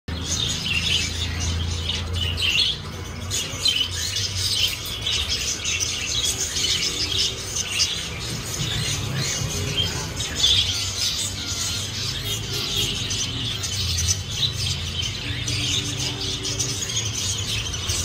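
Zebra finches in a crowded cage calling constantly: a dense chatter of short, high calls from many birds at once, over a low steady hum.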